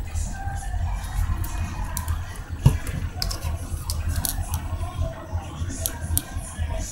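Plastic spray bottles being handled: scattered light clicks and taps over a steady low rumble, with one sharper knock about two and a half seconds in.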